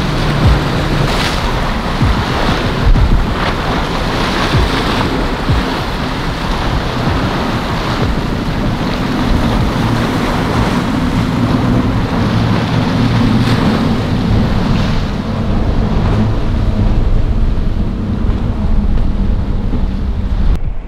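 Waves breaking and wind buffeting the microphone, with a boat's engine running underneath through the middle of the stretch.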